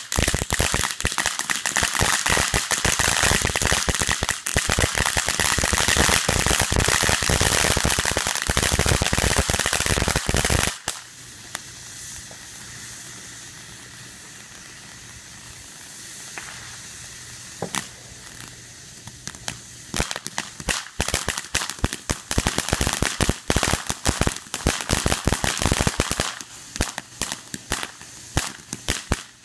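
Consumer ground fountain fireworks. For about the first eleven seconds, dense rapid crackling pops, which cut off abruptly into a quieter steady hiss of spraying sparks. From about twenty seconds in, crackles and pops build up again.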